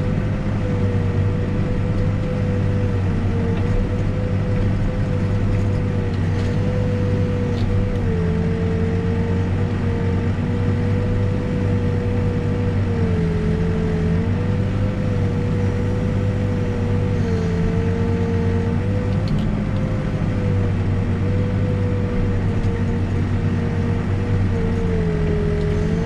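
New Holland backhoe's diesel engine running steadily while it digs a trench and swings to dump, heard from the cab, with a steady whine that sags in pitch briefly every few seconds as the arm works.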